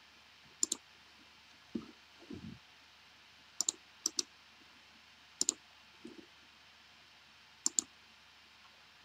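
Computer mouse button clicks, about five of them spread out, each a quick press-and-release pair, with a couple of soft low sounds between them.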